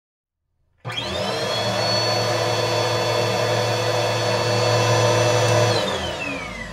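Cordless stick vacuum cleaner switched on with a sudden start, its motor whine rising quickly to a steady high pitch. It runs steadily for about five seconds, then is switched off near the end and the whine falls away as the motor spins down.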